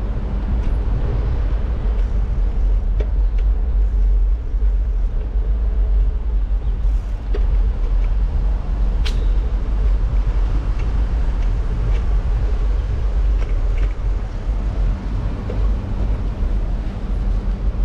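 Bicycle rolling over interlocking brick paving: a steady low rumble, with a few light clicks and rattles from the bike.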